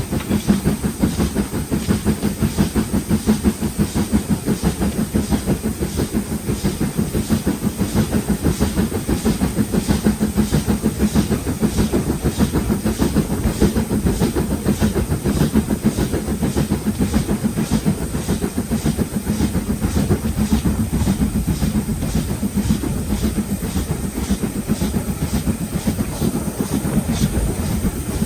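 LMS Black Five 4-6-0 steam locomotive 44806 pulling away with its train, its exhaust beating in a steady rhythm of chuffs over the heavy rumble of the engine and carriages.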